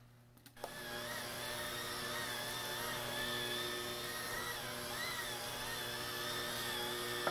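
Breville electric hand mixer switching on about half a second in and running steadily with a slightly wavering pitch, its beaters working crumbled almond paste and sugar into whipped egg whites for pignoli cookie dough.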